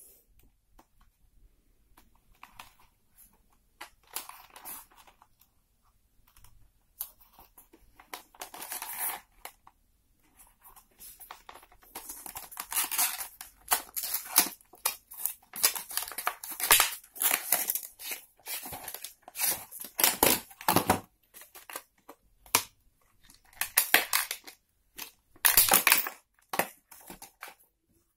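Clear plastic blister packaging and cardboard crinkling and crackling as a boxed power bank is unpacked by hand. The rustles come in irregular bursts, sparse at first and louder and busier from about halfway.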